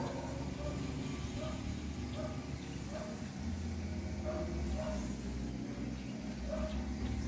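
Liquid glugging out of an upturned plastic bottle into a plastic fuel tank, in short irregular gulps, over a steady low hum.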